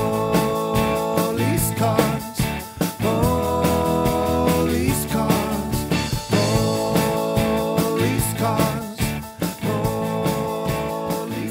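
Upbeat rock-style children's song music with a steady drum beat and long held notes in four phrases.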